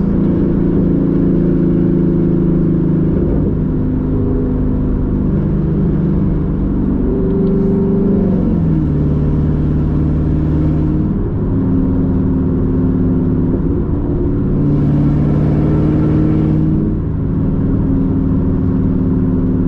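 Camaro's V8 engine running under way at road speed with road rumble, the engine note dropping and rising in steps several times, and a louder, brighter stretch of acceleration about three-quarters of the way through.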